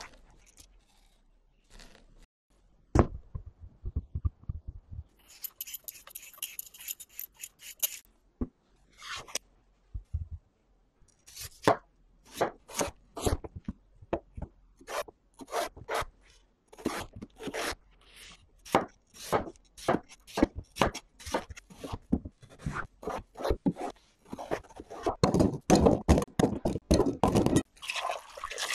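Kitchen knife cutting a raw potato on a wooden cutting board. A few seconds of quick scraping come about five seconds in, then sharp separate knife strokes through the potato onto the board, one or two a second, which come faster near the end as it is diced into cubes.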